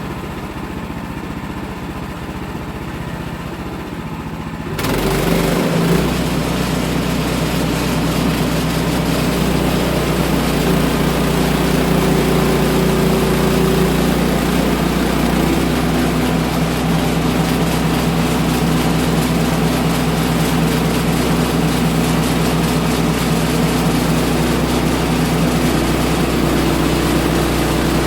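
Sawmill engine running steadily. About five seconds in it gets louder and holds a higher, steady drone with a hiss over it, as it takes on work.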